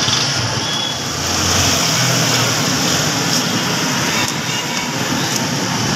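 Steady roadside traffic noise, vehicles running past on the street, with a constant hiss over it.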